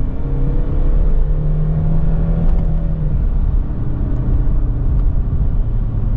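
2014 BMW 125d's four-cylinder turbodiesel heard inside the cabin under hard acceleration in third gear, its note climbing. About three seconds in it upshifts to fourth, the pitch drops, and the revs ease off toward the end as the car slows.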